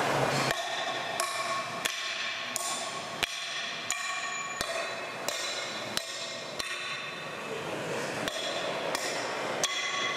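Repeated hammer blows on metal, about one and a half a second in a steady rhythm, each ringing briefly, with a short pause about seven seconds in.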